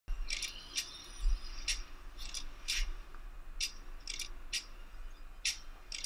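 Sharp, high metallic clicks and clinks, about ten at uneven intervals, each with a brief ring, like small metal parts tapping together.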